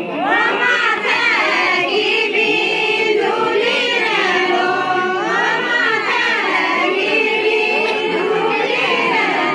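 A group of women singing a Kumaoni jhoda-chanchari folk song together, voices moving in unison in long melodic phrases.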